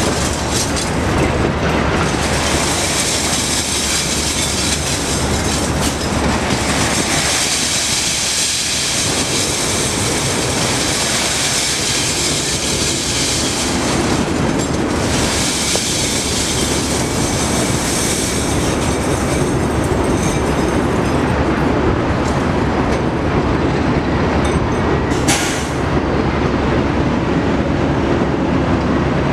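Scrap metal sliding and clattering out of a steel lugger container tipped up by a 50,000 lb lugger hoist, a dense metallic rattle that swells and eases in waves, over a diesel truck engine running. In the second half the clatter thins out and the engine grows as the truck pulls forward away from the pile.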